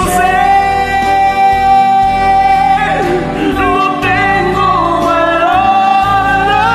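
A woman singing over a karaoke backing track. She holds one long note for about three seconds, then sings a wavering phrase.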